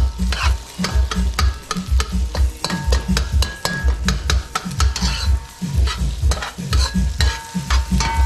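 A metal spoon scraping and clinking quickly against a large metal pan while scrambling eggs, the pan ringing briefly after some strokes, over a light sizzle of egg frying.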